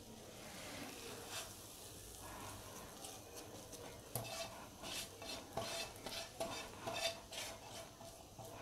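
Silicone spatula scraping thick cashew-and-peanut dough out of a nonstick pan onto butter paper: faint, short scrapes that come about two a second from about four seconds in.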